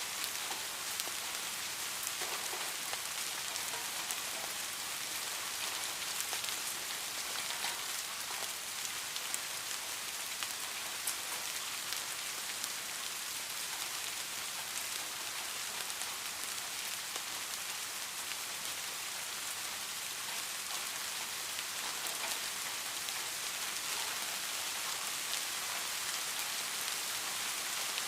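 Steady rain falling, with a dense hiss and scattered individual drop patters.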